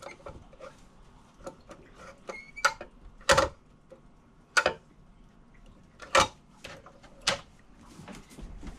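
A scattered series of sharp clicks and knocks, about half a dozen, one to two seconds apart, with no steady pump hum between them.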